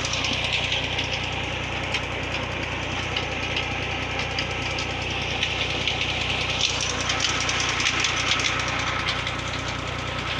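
Tractor's diesel engine running steadily with a rapid, even knocking beat, driving a tubewell pump.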